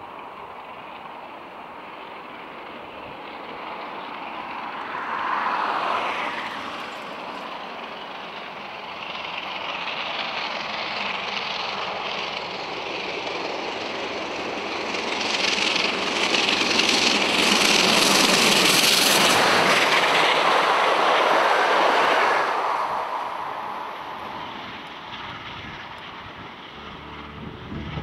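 Victorian Railways R class 4-6-4 steam locomotive hauling a passenger train, its sound building as it approaches. It is loudest as it passes close by, about two-thirds of the way in, then fades away.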